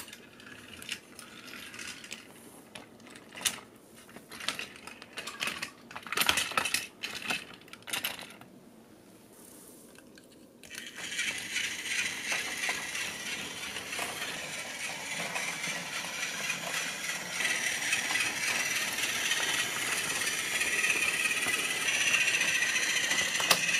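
Plastic toy trains clicking and clattering as they are set on the track by hand, then, about ten seconds in, a battery-powered Plarail Thomas starts running along plastic track with a steady rattling whir that grows louder as it comes closer.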